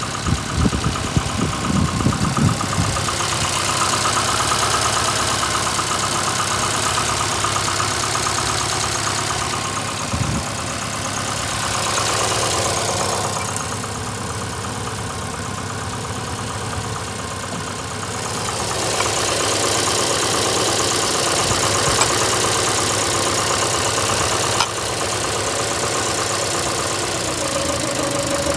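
VAZ-2115 eight-valve four-cylinder engine running at idle with a steady rhythmic knock. The owner complains that it misfires and knocks, and the trouble began after the head gasket blew on the first cylinder; he does not know the cause.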